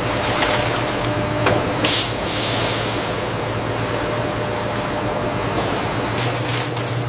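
Potato chip production-line machinery running steadily with a low hum. About two seconds in there is a sharp burst of hiss, then a longer, softer hiss.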